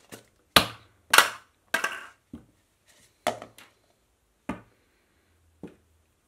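Plastic lid of a paper coffee cup being pressed and snapped onto the cup: about eight sharp clicks and knocks at irregular spacing, the last ones fainter. The lid will not sit properly.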